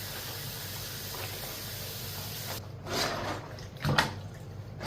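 Steady rush of running water for about two and a half seconds, then it cuts off and a few short knocks follow.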